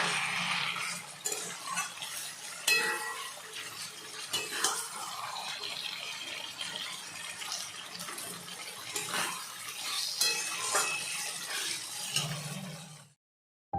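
Kitchen cooking sounds: metal utensils clinking and scraping against pots and dishes over a steady hiss, with a low hum underneath. The sound cuts off abruptly about thirteen seconds in.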